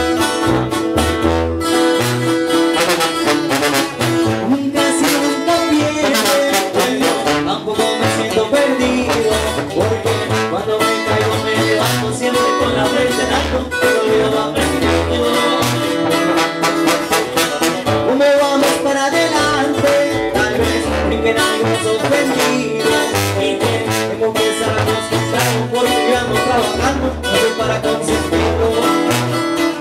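Live Mexican regional band music: two acoustic guitars strumming and picking over a sousaphone playing a pulsing bass line, with a young man singing into a microphone.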